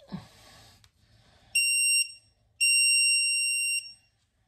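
Digital torque wrench beeping twice, a short steady high beep and then a longer one, the alarm that signals the set torque (60 inch-pounds) has been reached on the bolt. A brief rustling noise comes just before.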